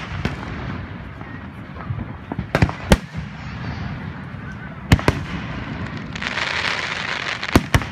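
Aerial firework shells bursting: about six sharp bangs, mostly in close pairs, over a low rumble, with a dense hiss for over a second near the end.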